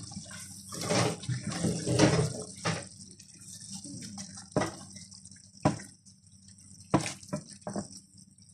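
Silicone spatula stirring prawns in a thick, watery sauce in a non-stick pan: wet sloshing and scraping in the first few seconds, then several sharp knocks of the spatula against the pan. A steady low hum runs underneath.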